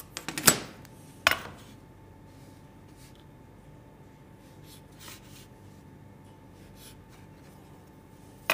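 A steel rule being handled and set down on a wooden workbench: a quick cluster of knocks in the first half second, the loudest about half a second in, and one more sharp knock a little over a second in. After that come only faint taps and rubbing.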